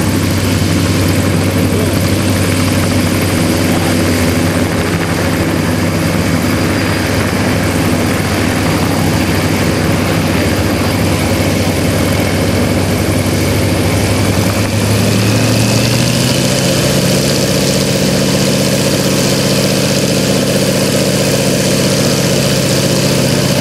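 Yakovlev aerobatic plane's M-14P nine-cylinder radial engine idling as it sits and taxis slowly, with the propeller turning. About 15 seconds in, the engine speeds up a little and holds steady at the higher note.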